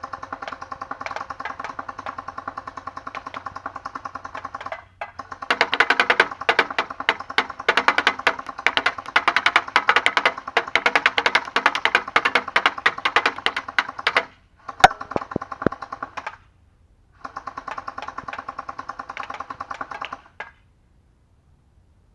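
M4 Punisher gel blaster firing on full auto: its electric gearbox whirs with a rapid, even stream of shots. There are four bursts, the second and longest about nine seconds, with one sharp crack near the start of the third.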